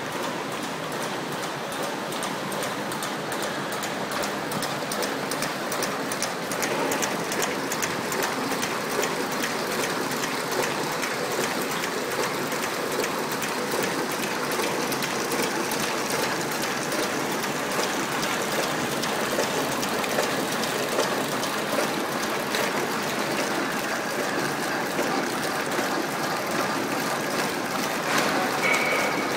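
Coffee-capsule feeding and packing machinery running: a steady, dense rattling and clicking of conveyors and packing mechanisms, with a short high tone near the end.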